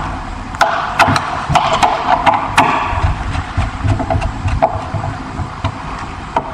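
Screw being tightened to fasten a smoke detector camera to a ceiling panel: a run of sharp clicks and knocks over about the first half, over a steady mechanical hum.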